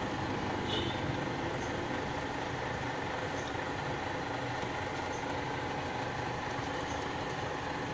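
Steady hum of an engine idling in the background.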